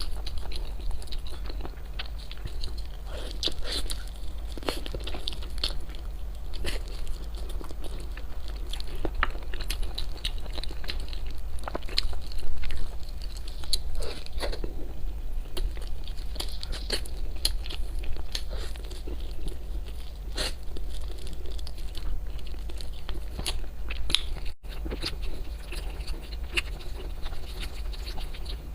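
Close-miked eating of Chinese food: irregular crunchy bites and chewing, with a steady low hum underneath.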